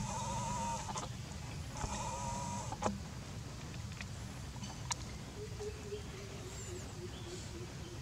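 Monkey calling twice in the first three seconds: two wavering, high-pitched cries about a second each, typical of a young macaque's cry. A faint steady drone comes in about halfway through.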